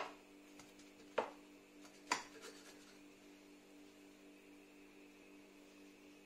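A knife clinking against a metal baking pan: three sharp clinks in the first two seconds, the first the loudest, over a faint steady hum.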